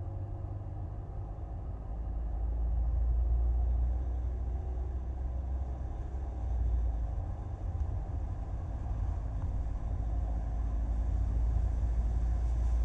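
Skoda Kodiaq driving along a road: a steady low rumble of tyre and wind noise, swelling slightly now and then.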